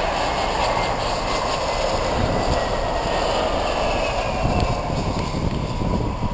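Airbus A320's twin IAE V2500 turbofan engines during the landing roll: a steady loud jet roar with a faint whine that falls in pitch as the airliner passes.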